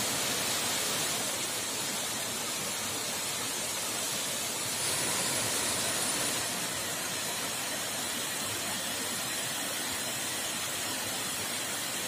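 Waterfall: a steady rush of falling water, a little louder for a second or two about five seconds in.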